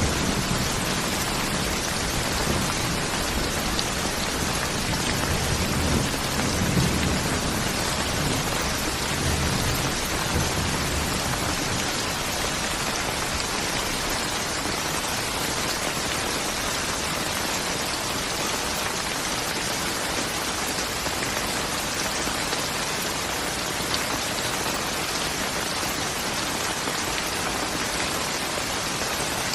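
Steady rain falling hard, an even hiss of drops on surfaces. A low rumble of thunder runs under it for about the first ten seconds, then dies away.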